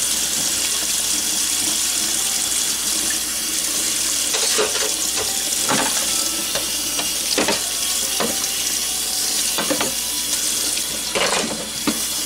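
Kitchen faucet running steadily into a stainless steel sink as dishes are rinsed under the stream. From about four seconds in come several short knocks and clinks of dishes being handled and set in the drying rack.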